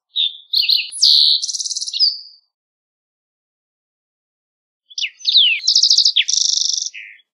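Green-tailed towhee singing: two song phrases a couple of seconds apart, each opening with short sharp and slurred whistled notes and running into fast trills.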